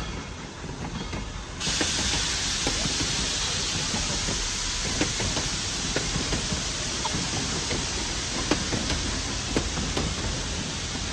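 Steam locomotive venting steam: a loud, steady hiss cuts in abruptly about a second and a half in and holds, over a low rumble with scattered small clicks and knocks.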